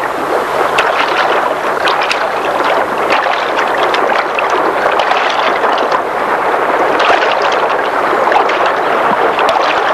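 Fast-flowing stream rushing steadily, with small splashes as a hand reaches into the water.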